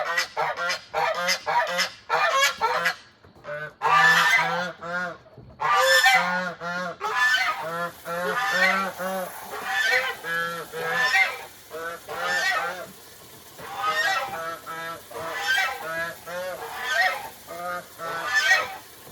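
Domestic goose honking over and over in quick runs of loud calls with short pauses between. It is a goose acting aggressively, going after the chickens and its owner.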